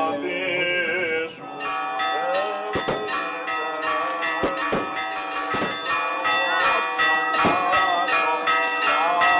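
Brief chanting at the start gives way to church bells ringing rapidly, about a second and a half in. Many overlapping ringing tones are struck again and again, with loud sharp clangs every second or so.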